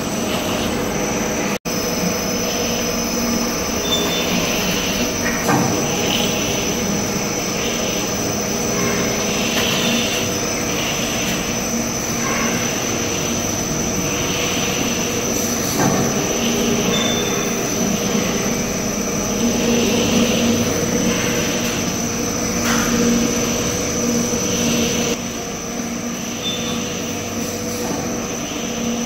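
Soda-cracker production line machinery running: dough sheeting and laminating rollers and conveyor belts, a steady mechanical hum with a constant high whine and a few light clicks.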